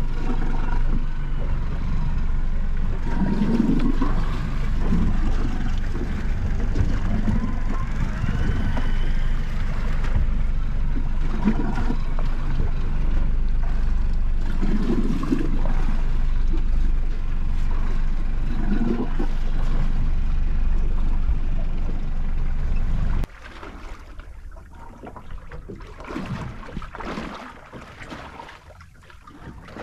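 Steady low rumble of wind on the microphone aboard a small boat at sea, with water sloshing against the hull every few seconds. About 23 seconds in the rumble cuts off sharply, leaving softer wind and water.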